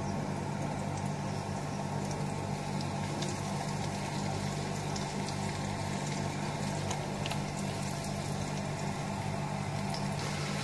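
Hot oil sizzling steadily in a frying pan as flour-coated chicken pieces deep-fry, with faint crackles, over a steady low hum.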